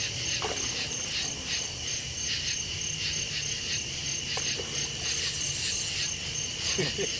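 Night-time insect chorus: crickets chirping in an even pulse of about three chirps a second over a steady high trill.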